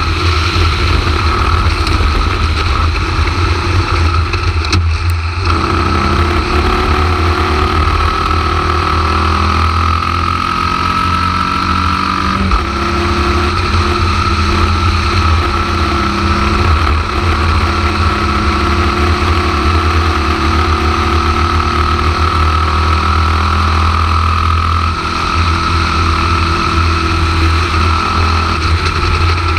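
Onboard sound of a Formula Vee racing car's air-cooled Volkswagen flat-four engine under racing load. Its pitch climbs and drops through gear changes and corners, with a brief dip about five seconds in and a sudden step about twelve seconds in, over a constant low rumble.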